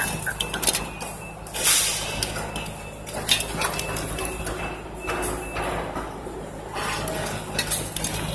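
Knocks and scrapes, several times, over a steady low hum, as a precast filigree floor slab is guided down by hand onto the rebar starter bars.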